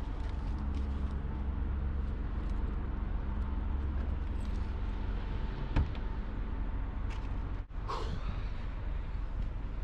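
Jeep on the move: a steady low engine and road rumble with a faint hum over it, broken once by a short dropout about two-thirds of the way in.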